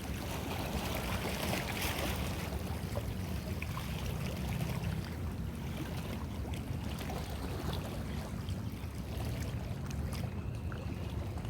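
Steady low rumble with an even hiss and a few faint light clicks: open-air waterside ambience.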